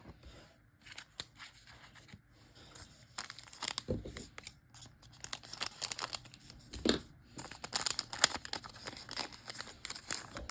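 A foil trading-card pack being torn open and crinkled in the hands, a dense crackly rustle with a couple of dull thumps.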